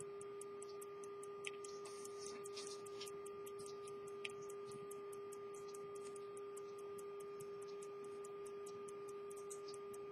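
1744 English verge-escapement pocket watch movement ticking in rapid, even beats over a steady hum, with a couple of slightly louder clicks in the first few seconds.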